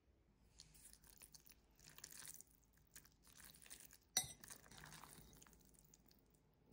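Quiet, faint rustling of noodles being handled, then a single sharp clink of metal chopsticks against a ceramic bowl about four seconds in.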